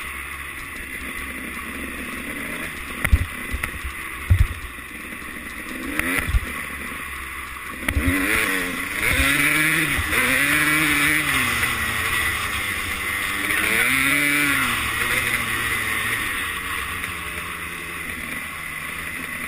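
Engine of a 250cc two-stroke motocross bike running while riding, its pitch rising and falling as the throttle is worked through the middle of the stretch. Wind rush on the microphone is heard throughout, with a few sharp knocks about three to six seconds in.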